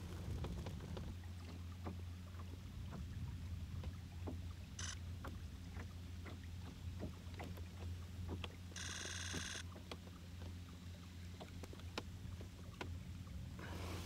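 Small water sounds around a kayak: scattered light drips, knocks and clicks over a steady low rumble of wind on the microphone. A short, high buzzing rattle comes about nine seconds in.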